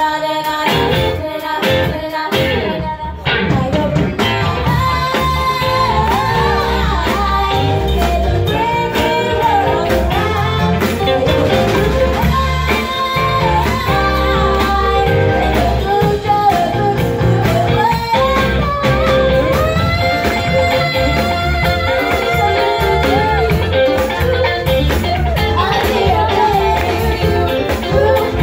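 Two girls singing a pop-rock duet with a live band of drums and electric guitar. The band plays a few short choppy hits at first, then comes in fully about three and a half seconds in.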